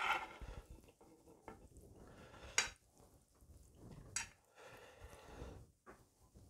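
Eating sounds of instant ramyeon: chewing and soft slurping of noodles, with metal chopsticks clicking sharply against the bowl twice, about two and a half and four seconds in.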